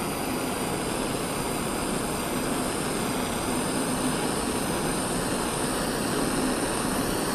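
Blowtorch flame burning steadily with an even rushing hiss while it is played on a piece of bare metal.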